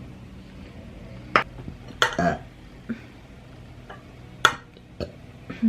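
Eating utensils clicking and clinking against a dish, about six separate sharp clicks, one a little drawn out about two seconds in, over a steady low hum.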